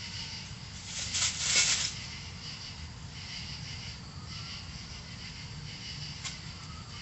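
Domestic cat giving a defensive warning hiss at an opossum: one loud hiss in two quick bursts about a second in. A steady, pulsing high chirring continues underneath.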